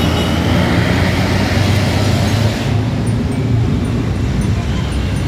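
Intercity coach bus engine running as the bus pulls past and away; its noise drops off about two and a half seconds in, leaving steady road traffic noise.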